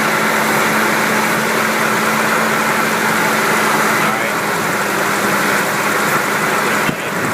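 2000 Ford Ranger engine running steadily at a high idle, which the owner suspects is caused by a vacuum leak.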